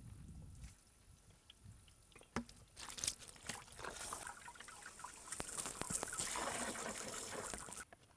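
Water running and splashing, with a few knocks and clicks. It stops abruptly near the end.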